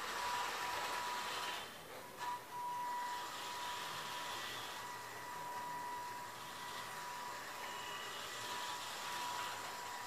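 Electric gear motors of a homemade RC tractor chassis running as it drives across a stone floor: a steady high whine with a hiss of wheels and gears, dropping off briefly about two seconds in.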